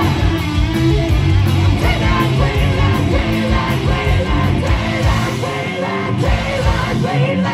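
Hard rock band playing live: distorted electric guitars, bass and drums, with the singer yelling and singing the vocal over them, heard from the audience.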